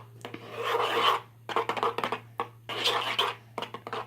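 Glue and colouring being stirred fast for slime, a utensil scraping and rubbing in the container in strokes that swell and fade about once a second.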